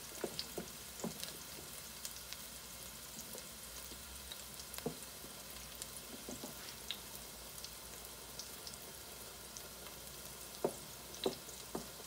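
Diced onions sizzling softly in olive oil. A wooden spoon stirs spaghetti in a pot of boiling water, knocking against the pot several times about a second in and again near the end.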